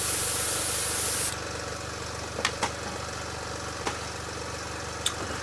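Sparmax Max-3 dual-action airbrush spraying, a steady hiss of air that cuts off about a second and a half in. Beneath it the small Sparmax ARISM AC66HX hobby compressor runs with a steady hum, and a few light clicks come later.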